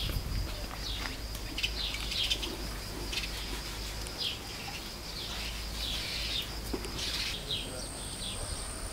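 Small birds chirping outdoors, a string of short, quick, falling calls repeated throughout, over a steady high-pitched whine. A second, higher steady whine joins about seven seconds in.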